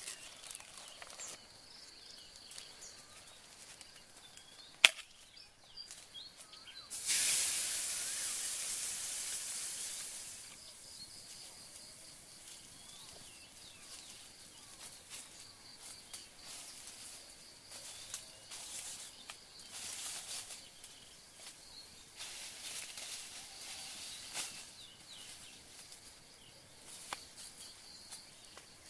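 A hot wok sizzling: a loud hiss starts suddenly about a quarter of the way in and dies away over about three seconds. A sharp click comes shortly before it. Throughout, a steady high insect drone, scattered bird chirps and small crackles from the wood fire.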